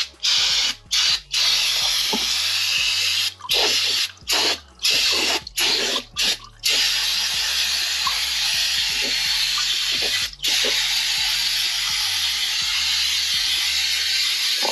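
Aerosol can of brake parts cleaner spraying with a loud hiss, first in a series of short bursts, then one long continuous spray with a brief break a little past the middle.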